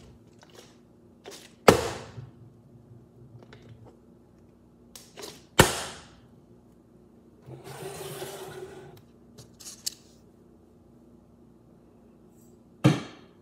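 Partly filled plastic water bottle flipped onto a wooden tabletop: three sharp thunks several seconds apart, the middle one as the bottle lands upright on its cap. A softer rushing noise lasts a second or so in between.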